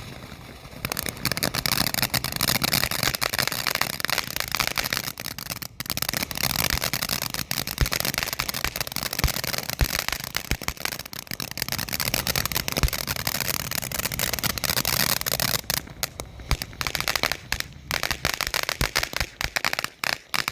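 Top Gun Fireworks Pirate's Treasure fountain firework spraying with dense crackling. It grows louder about a second in and turns patchier near the end.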